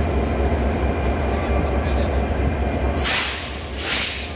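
Local passenger train coaches rolling past close by, a steady low rumble of wheels on the rails that drops away as the last coach passes. Near the end come three short, loud hisses.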